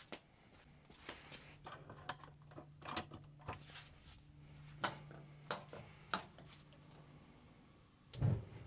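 Irregular light clicks and knocks of things being handled, about a dozen over six seconds, with a faint steady hum behind them. A louder low thump comes near the end.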